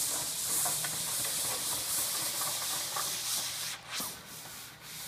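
Banner sheet being pulled out of a retractable banner stand's roller base, a steady hissing rub of the sheet sliding over the aluminium roller, easing off near the end.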